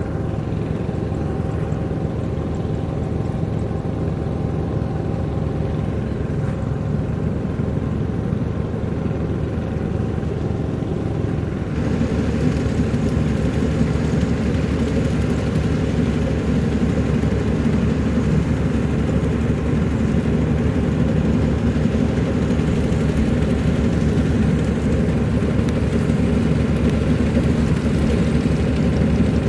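Maxxi Bimo NDR102L combine harvester running steadily, with a constant engine hum; about twelve seconds in it grows louder and fuller and stays there.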